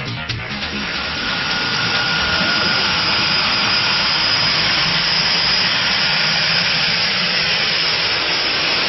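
Twin PT6A turboprop engines of a de Havilland Canada DHC-6 Twin Otter running as the plane taxis close by. A steady loud rush of the propellers with a thin high whine, growing louder over the first two seconds as the plane approaches.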